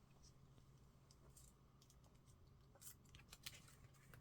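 Near silence with faint crinkles and taps of a sheet of origami paper being folded and creased, most of them in the last second or so.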